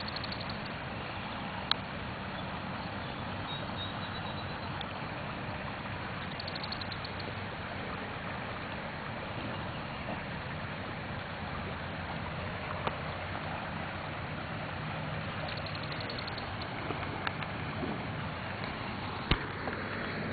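Swollen creek in flood: fast, muddy water rushing steadily past branches and debris. Two sharp knocks stand out, one about two seconds in and one near the end.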